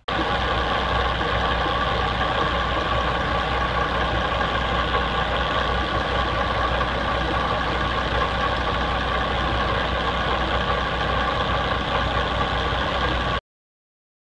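Boat engine running steadily in the engine room beside the Mercury Zeus pod drive, run as a leak test of the refitted hydraulic pressure sensor; the sound cuts off suddenly near the end.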